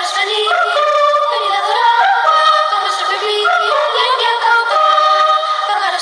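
Children's choir singing a Christmas carol (villancico) in several voices, with held notes that move to new pitches about every second.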